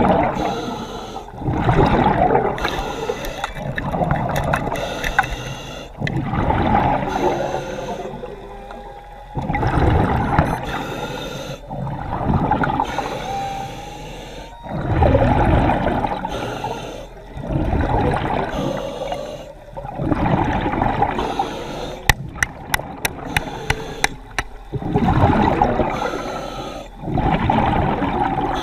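Water rushing and bubbling in repeated surges, swelling and fading about every two to two and a half seconds, with a quick run of sharp clicks about three-quarters of the way through.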